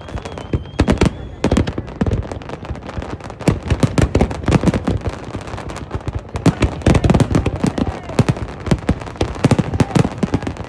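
Fireworks display going off: rapid, overlapping bangs and crackles, sparse for the first few seconds and then a dense, almost continuous barrage.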